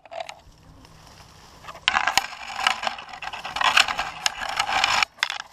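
Dry leaf litter and twigs crunching and brush scraping close to the microphone, with irregular cracks and snaps, as someone moves through forest undergrowth. It starts about two seconds in and stops abruptly near the end.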